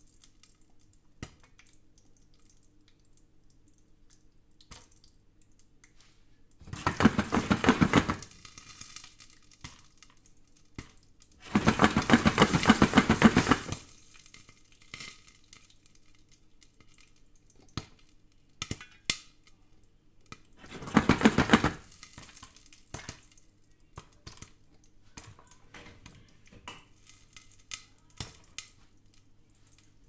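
Popcorn popping in a lidded stainless-steel pot on a glass hob: scattered sharp pops, with three louder bursts of dense rattling as the pot is shaken, about 7, 12 and 21 seconds in, the middle one longest.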